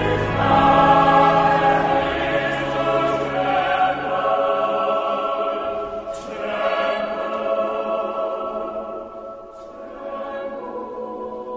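Choir of boys and men singing sustained chords. The deepest voices drop out about five seconds in, and the singing grows softer near the end.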